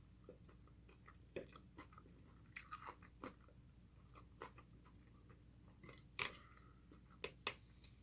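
Faint chewing and mouth sounds of a person eating, with short clicks and smacks scattered throughout; the loudest comes a little past six seconds in.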